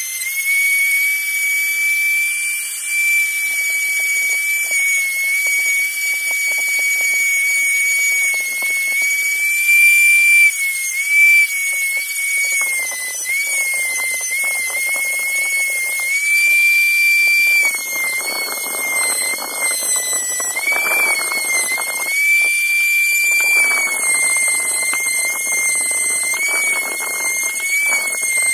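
Rotary tool running at high speed with a steady high whine that sags briefly now and then under load, as its small wheel works over the steel jaws of needle-nose pliers to clean them. A gritty scraping of the wheel on the metal comes and goes, strongest in the second half.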